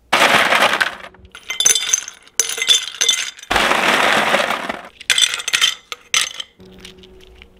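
Ice cubes being grabbed by hand from a freezer ice bin, with two loud rattling clatters of ice, and cubes clinking sharply as they drop into a glass jar.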